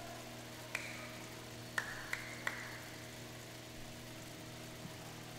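A steady low hum of several tones, with four short sharp smacks that ring briefly in a large hall: one about a second in, then three in quick succession around two seconds in.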